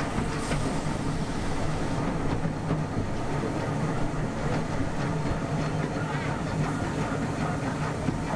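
Miniature railway carriage running along the track: a steady rumble of wheels on the rails with scattered faint clicks.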